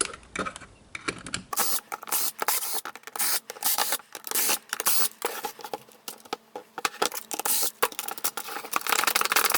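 Close, busy scraping and clicking of hard plastic and metal parts as a Hikoki cordless jigsaw is handled and taken apart on a workbench, with the sound changing abruptly about one and a half seconds in.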